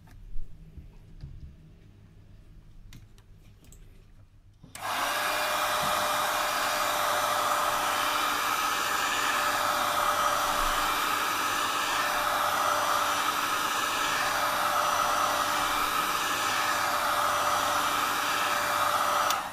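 Heat gun blowing hot air onto a phone's front glass to soften the screen adhesive, switching on abruptly about five seconds in and cutting off near the end. It is a steady rush of air with a constant whine underneath.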